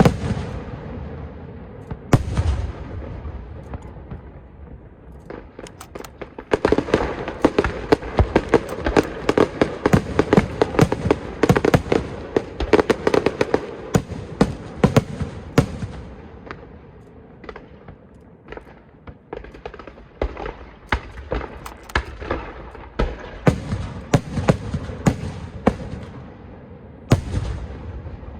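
Aerial fireworks going off: shells bursting with sharp cracks and booms. Through the middle they build into a dense, rapid crackling, then thin out, with another flurry near the end.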